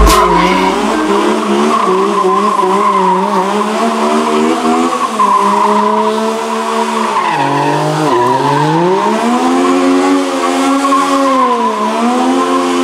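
Small coupe-bodied race car doing smoky donuts: the engine is held at high revs while the rear tyres spin and squeal. The engine pitch dips and climbs again a few times, most deeply about seven to eight seconds in.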